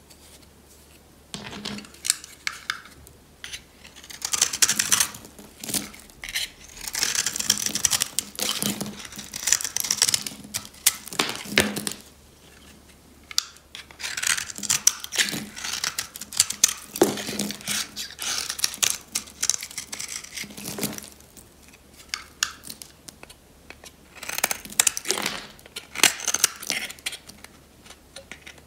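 Snap-off utility knife blade shaving and scraping a dry bar of pink soap: runs of quick, crunchy scraping strokes as flakes come off, with a few short pauses between runs.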